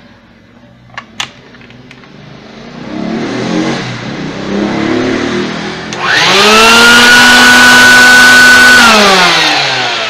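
Two clicks about a second in, then a vacuum cleaner's electric motor, fitted with a new armature, starts and builds up; from about six seconds it runs with a loud, steady high whine, then winds down with falling pitch near the end. This is the final test run after the armature repair.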